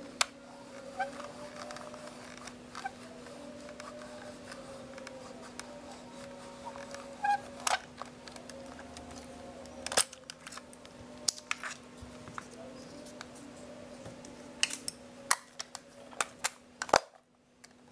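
Handling noise of a Konica POP 35 mm compact film camera: scattered sharp clicks and taps of fingers on its plastic body, coming closer together near the end, over a faint steady hum.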